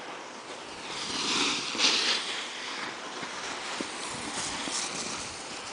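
Snowboard edges scraping and sliding on snow, a hiss that swells about a second in and then eases.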